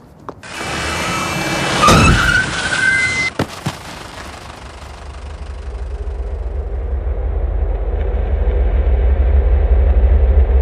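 Car tyres screeching and a sharp crash impact about two seconds in, then a low rumble that swells steadily louder toward the end.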